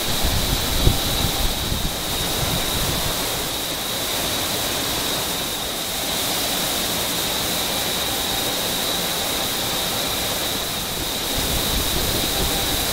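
Steady rushing roar of industrial machinery, with a constant high whine running through it. A few low thumps come in the first two seconds.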